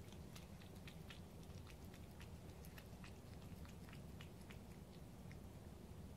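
A tabby cat eating chunks of wet cat food from a cup: faint, irregular chewing clicks, a few each second.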